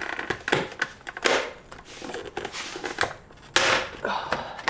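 Plastic clips creaking and clicking as a Toyota Tacoma side-mirror turn-signal cover is pried off by hand, then one loud crack about three and a half seconds in as the clips let go and the piece pops free.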